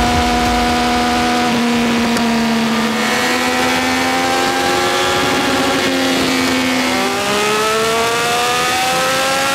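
Triumph Speed Triple 1200 RS inline three-cylinder engine with an aftermarket Zard exhaust, running on a dyno: held at steady revs for several seconds, then, after a brief dip about six seconds in, revving up in a smooth rising sweep.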